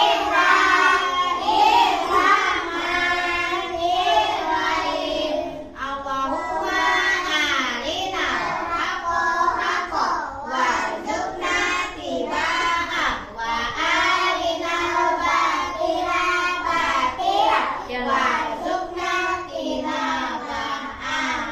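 A group of young children singing together, an action song about their two hands and five fingers.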